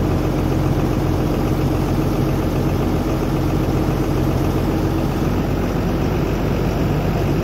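Excavator's diesel engine running steadily at idle while its boom holds a hydraulic hoist cylinder suspended.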